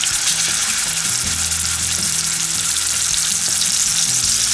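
Venison tenderloin searing in hot bacon grease in a cast iron skillet: a steady, loud sizzle.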